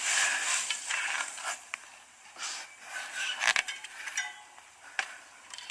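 Scattered clicks, clinks and scrapes of a bicycle being set down and shifted into a car's roof rack.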